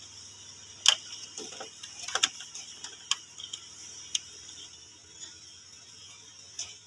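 Flat ribbon scanner cable being fitted into its connector on an inkjet printer's logic board: a few sharp, light clicks and taps, spaced about a second apart.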